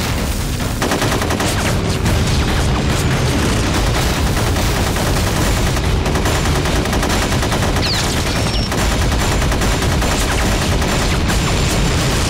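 Sustained machine-gun fire: long runs of rapid shots, with a short rising whistle about eight seconds in.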